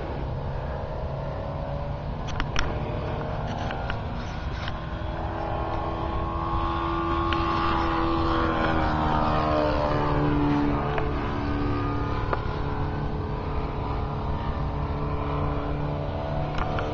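Align T-Rex 700 RC helicopter in flight: a steady whine with several overtones from its motor and rotor, rising in pitch over the first several seconds and dropping about eleven seconds in.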